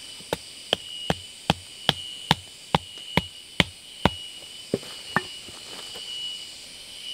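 A wooden stake being driven into the ground with a wooden baton: ten sharp, even knocks at about two and a half a second, then a short pause and two lighter knocks.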